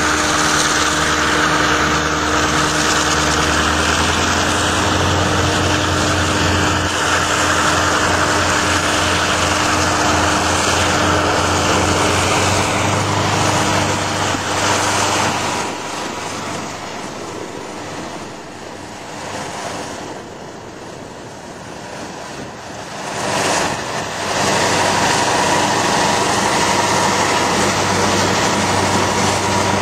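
Union Pacific diesel locomotives working under load as they ram through snow drifts, the engines running steadily loud. The sound drops off for a stretch past the middle, then swells back up as the locomotives come past again.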